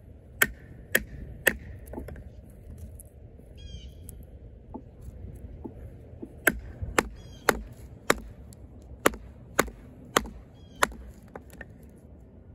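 Oerla OLK-033RD fixed-blade knife with a 420HC steel blade chopping into a piece of wood. Three hard strikes about half a second apart, then a few lighter taps, then a run of eight hard strikes at about two a second.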